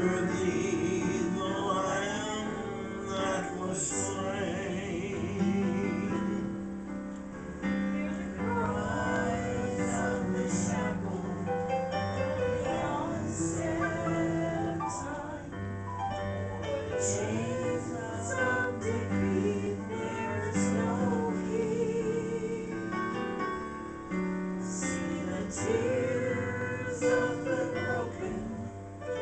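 Slow music on a Yamaha Clavinova digital piano, with voices singing along in long held notes.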